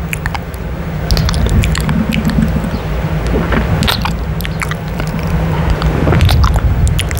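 Close-miked mouth sounds of lips kissing and smacking against a mesh microphone grille: an irregular run of short wet clicks and smacks over a steady low rumble.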